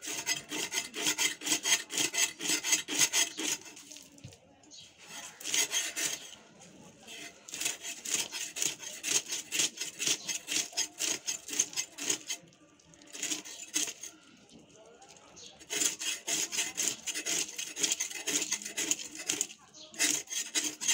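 Snakehead fish being scaled by drawing it against the fixed blade of a boti floor knife: rapid rasping scrapes of scales on steel, in runs of a few seconds broken by short pauses.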